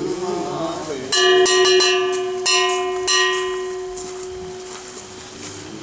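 Hand-held temple gongs (kane) struck several times in quick succession with wooden strikers, about five strokes over two seconds, each leaving a bright metallic ringing that fades slowly.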